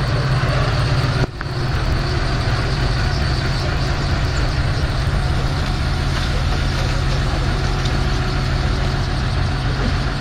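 Large marina boat-launching forklift's engine running steadily under load as it lowers a boat, with a brief break in the sound about a second in.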